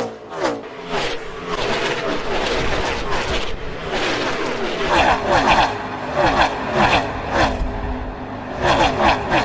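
NASCAR Gen 6 Cup cars' V8 engines at racing speed, a pack of cars going by one after another, the pitch of each falling as it passes.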